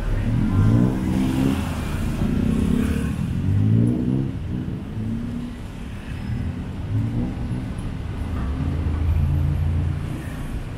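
Busy city street traffic: vehicle engines running and accelerating past over a steady low rumble.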